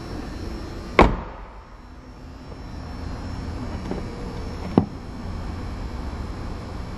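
A 2011 Lincoln MKZ's rear door shut with a loud thump about a second in, then a sharp click a few seconds later as the push-to-open fuel filler door is pressed and pops open.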